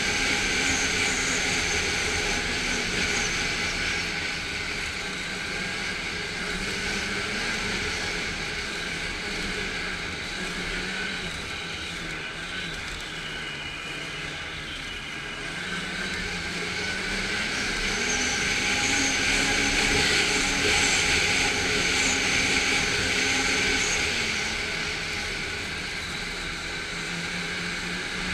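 Snowmobile engine running as it rides along, with wind noise on the mic; it eases off around the middle and picks up again a few seconds later.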